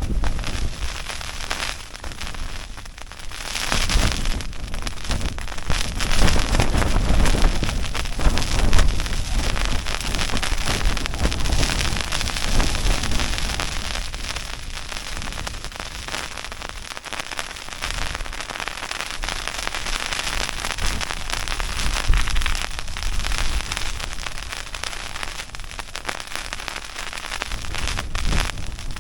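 Wind and rain on a pyramid tent's flysheet, heard from inside: the fabric crackles and flaps under the rain, and strong gusts swell in with a low rumble about four seconds in and again near the end.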